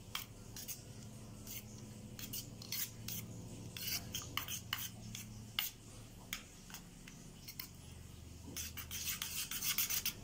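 Spoon stirring curd raita in a stainless steel bowl: quick, irregular scraping and clicking against the metal sides, thickest near the end.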